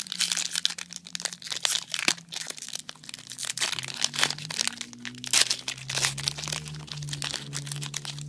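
Foil booster-pack wrapper crinkling and tearing as it is opened and handled: a dense run of irregular crackles.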